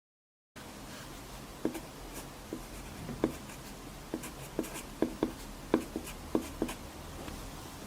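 Pencil writing on paper: about a dozen short, irregular strokes over a steady faint hiss, starting about half a second in after dead silence.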